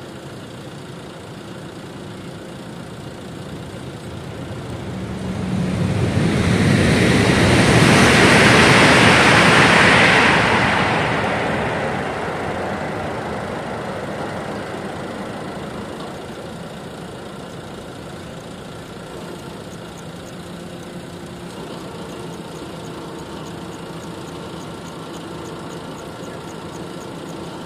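CRRC high-speed electric train passing at speed: a rushing noise swells over a few seconds, peaks about eight to ten seconds in, and fades away by about sixteen seconds in. A steady background noise lies under it.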